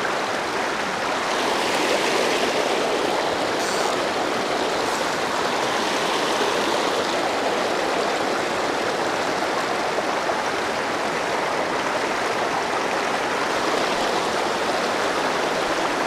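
Mountain stream flowing, a steady rush of running water.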